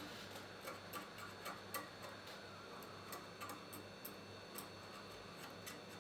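Small, sharp, irregular clicks and taps of a hand tool working on an iPhone 8 Plus housing during rear glass removal, several a second at first and thinning out after about two seconds, over a steady low electrical hum.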